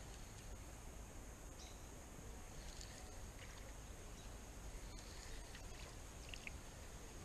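Faint outdoor ambience: a steady low hiss under a constant thin high whine, with a few faint short chirps and a small click about five seconds in.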